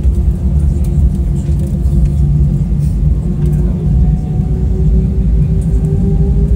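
Airbus A320 cabin noise while taxiing: the steady low rumble of the engines and rolling airframe, with an engine tone rising slowly in pitch.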